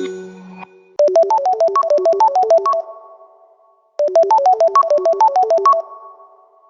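An iPhone ringtone: a fast run of short, bright notes, about ten a second, hopping between a few pitches for about two seconds. It plays twice, with a pause of about a second between, each time ending in a short fade. At the start, the end of a different ringtone dies away.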